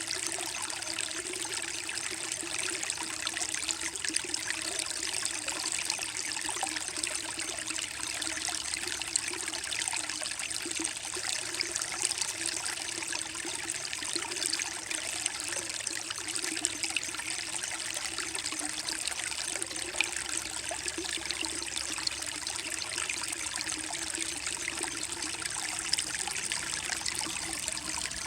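A small creek flowing and trickling over mossy rocks: a steady babble of running water with fine splashing detail.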